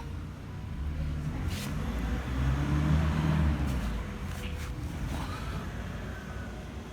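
A motor vehicle passing by, its engine sound swelling to a peak about three seconds in and then fading.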